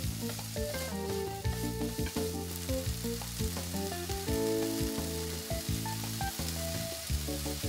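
Diced chicken and minced onion sizzling in butter in a frying pan, briefly stirred and scraped with a wooden spatula, over soft background music.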